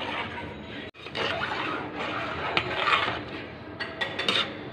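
A ladle stirring rice in a metal pot of boiling liquid, scraping and knocking against the pot with a few sharp clinks. The sound cuts out briefly about a second in.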